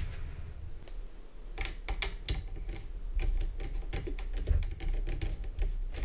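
Irregular small clicks and taps of a precision screwdriver and a tiny screw being worked into the SSD mounting point of a 2013 Mac Pro, starting about a second and a half in.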